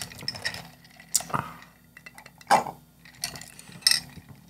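Ice cubes clinking against heavy glass mugs of iced soda, with a few short sips through plastic straws and the rattle of a straw drawn out of the glass. The sounds come as scattered separate clinks and brief slurps.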